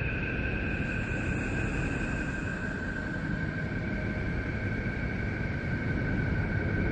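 Neptune 'space sound': radio emissions recorded by the Voyager 2 spacecraft and converted to audio, heard as a continuous wind-like rushing with two steady whistling tones, the higher one dropping slightly in pitch about three seconds in.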